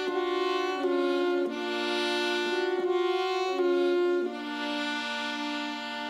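Instrumental background music: a slow melody of long held notes, moving to a new note every second or so.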